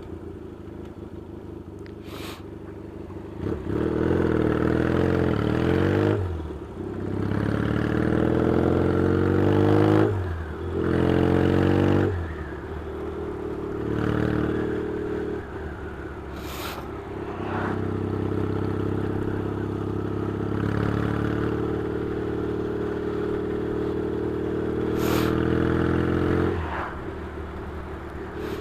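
Yamaha XS650 air-cooled parallel-twin motorcycle engine under way, revving up and dropping back three times in quick succession as it runs up through the gears, then pulling at a steadier note before the revs fall away near the end.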